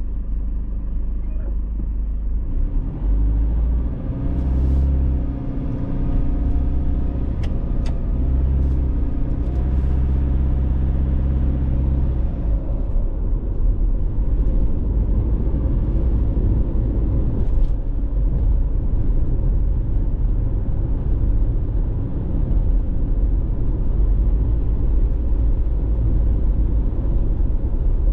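A car driving: a steady low rumble of tyres and engine, with an engine drone that comes in about three seconds in and fades about twelve seconds in.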